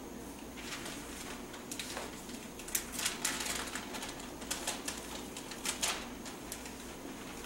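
Paper rustling with scattered light clicks and taps as papers and pens are handled, coming in short clusters, busiest in the middle and again near the end.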